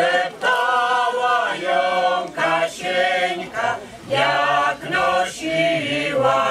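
Mixed choir of men's and women's voices singing a Polish folk song unaccompanied, in short phrases with brief breaks between them.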